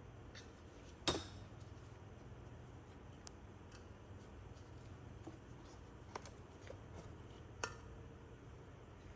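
Small steel parts clinking as valve keepers are fitted on a cylinder head under a valve spring compressor. One sharp click with a brief ring comes about a second in, then a few faint ticks and a second, smaller click near the end.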